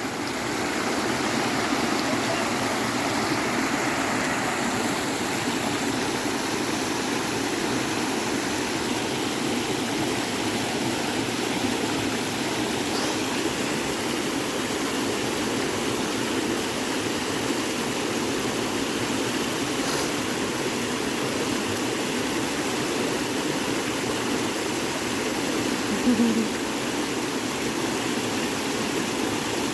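A rain-swollen creek rushing in a steady, even stream.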